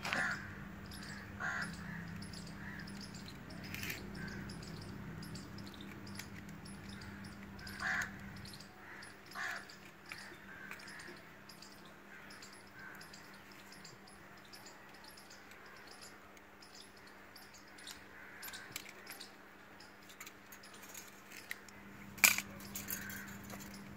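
Quiet outdoor ambience: occasional crow caws over a faint low hum that stops after about eight seconds and comes back near the end, with small clicks and scrapes of a hand tool on a pipe and one sharp click near the end.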